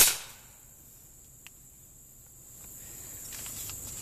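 A flintlock rifle fires once at the start, the report fading within about half a second. It is a small charge of about 20–25 grains worked in through the touch hole to shoot out a dry-balled patch and ball. Insects chirr steadily underneath.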